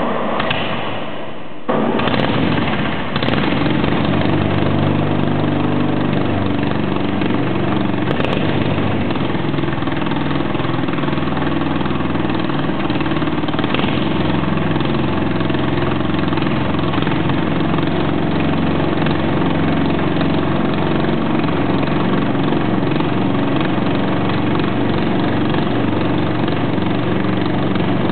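Mitsubishi A6M Zero fighter's 14-cylinder radial engine running steadily and loud. The level jumps up suddenly about two seconds in.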